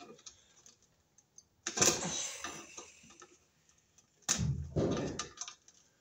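Pliers working the Romex cable at a ceiling electrical box, stripping back its outer sheathing: two bursts of scraping and crinkling handling noise, about two seconds in and again about four and a half seconds in.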